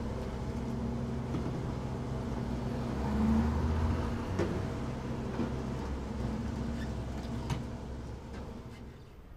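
Petrol station fuel dispenser pump running steadily as fuel flows into a halftrack's tank, with a couple of light clicks. The hum dies away near the end.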